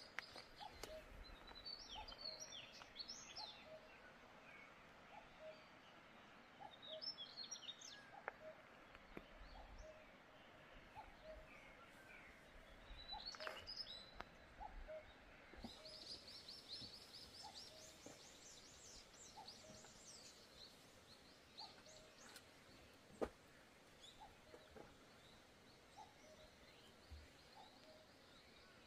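Faint birdsong outdoors: scattered chirps and twittering, with a short low note repeating about once a second. A single sharp click comes about two-thirds of the way through.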